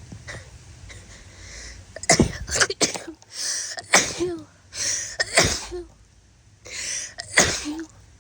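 A woman who is ill sneezing several times in a row: a quick cluster of snotty sneezes about two seconds in, then three more spaced a second or two apart, each after a gasping in-breath.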